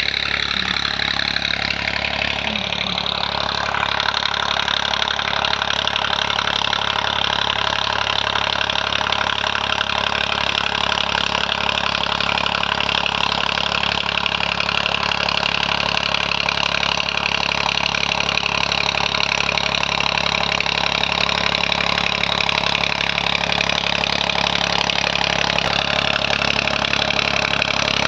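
Swaraj 744 tractor's three-cylinder diesel engine running through an Eicher silencer. Its pitch shifts over the first few seconds, then it runs steadily.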